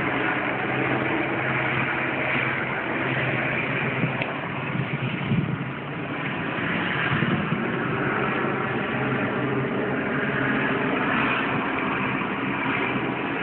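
Helicopter hovering overhead: a steady drone of rotor and engine.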